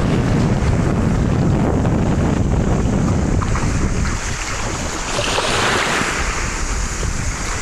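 Wind buffeting the microphone over small sea waves washing on a pebble shore. The rumble eases about four seconds in, and a wave washes in with a hiss soon after.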